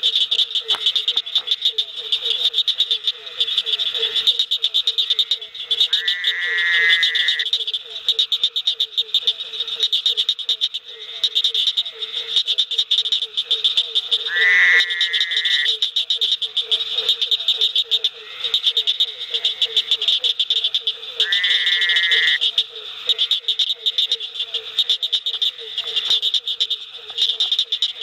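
Night chorus of frogs calling in a pond: a continuous high, rapid trill over a lower, steadily pulsing note, with three louder calls standing out about seven seconds apart.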